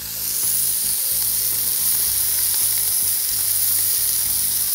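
Lean beef mince sizzling as it is tipped and scraped from its tray into a hot stainless-steel pan, the sizzle swelling over the first second and then holding steady.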